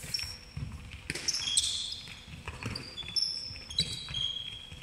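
Sneakers squeaking on a wooden sports-hall floor, many short high squeaks, mixed with dull thumps of a handball bouncing and running footsteps.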